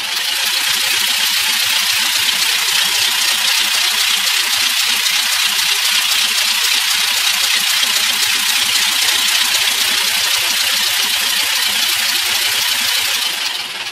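Freshly rebuilt big-block Chevrolet marine V8 being spun over on a Simtester run-in stand. Its open valvetrain, rocker arms and valve springs with the valve covers off, makes a steady, dense rattle that stops just before the end.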